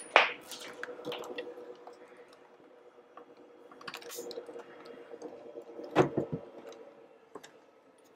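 A plastic desk phone and its Ethernet cables being handled and connected: irregular clicks, knocks and rustles, with a sharp knock just after the start and another about six seconds in. A faint steady hum lies underneath.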